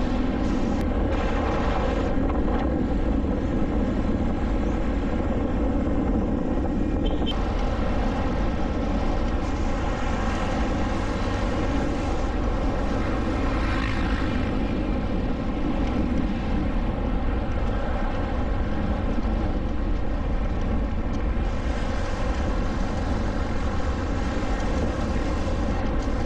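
Motor scooter running steadily while riding along, its engine hum mixed with heavy wind rumble on the microphone.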